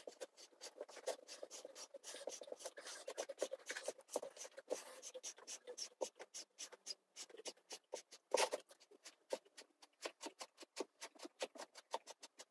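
Steel eye bolt being turned by hand in a tight hole in a wooden block, its threads creaking and clicking against the wood in a rapid train of short creaks, about six a second, with one louder click about two-thirds of the way through. The tight fit means the bolt has to be screwed out rather than slipping free.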